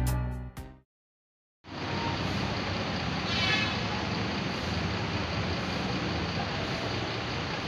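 Background music fades out, then after a short silence steady traffic noise begins: vehicle engines running in a busy bus terminal, with a faint, brief high-pitched tone about three and a half seconds in.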